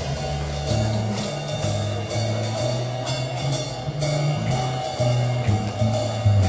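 Instrumental backing music with a bass line stepping through notes about twice a second over a steady drum beat.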